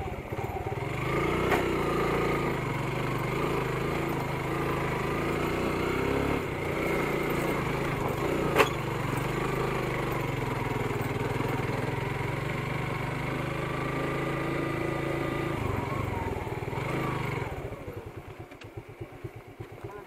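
Motorcycle engine running, its pitch rising and falling, then dropping to a slow idle near the end. There is a sharp click about eight and a half seconds in.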